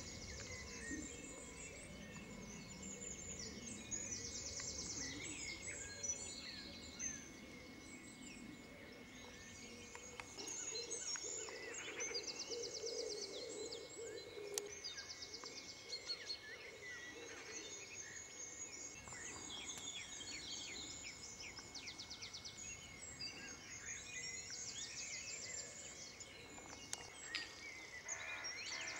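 Several songbirds singing and calling, with repeated high chirps and rapid trills, over faint steady outdoor background noise.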